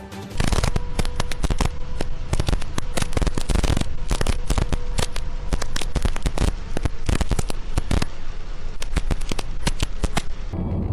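Dense, rapid crackling and popping, a fast irregular run of sharp cracks that starts suddenly just after the beginning and eases off near the end.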